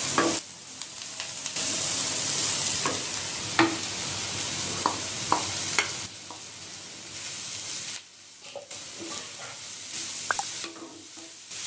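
Chopped carrot sizzling as it is stirred into onions frying in sesame oil, with the stirring utensil knocking against the pan now and then.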